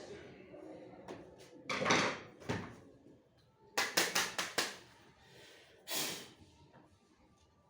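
Handling noises: two scraping rubs, then a quick run of five or six sharp clicks, then another rub.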